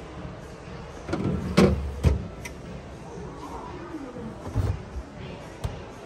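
Plastic freezer drawers of a Liebherr refrigerator sliding on their runners and being pushed shut, giving a few dull knocks, the loudest about one and a half and two seconds in.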